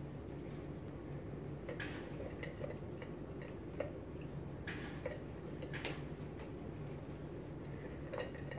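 A cat eating from a stainless steel bowl: irregular light clicks and clinks of food and teeth against the metal, about eight in all, over a steady low hum.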